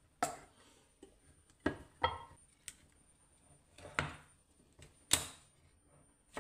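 A tin can's ring-pull lid being opened, then a spoon scraping stewed beans out of the tin and knocking against the metal. Several sharp clanks a second or so apart, the loudest near the end.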